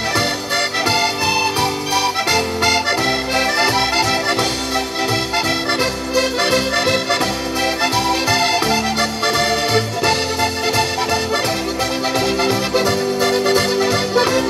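Two accordions playing a pizzica folk tune as a live duet, a continuous run of melody over sustained low bass notes.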